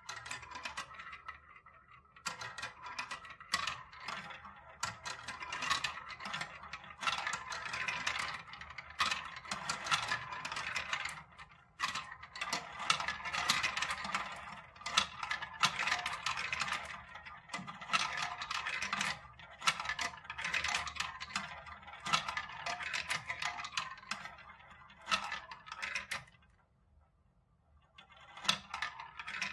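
Small plastic marbles rolling and rattling through the plastic tubes and funnels of a marble run, clicking against one another as they collect in the bottom channel. The clatter goes on almost without a break, falls quiet near the end, then a last short run of clicks follows.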